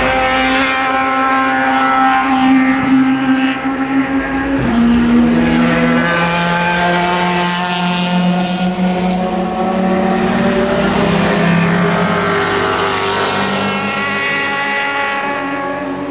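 Race car engines running at speed on the circuit, several engine notes overlapping and holding steady, with a drop in pitch about five seconds in.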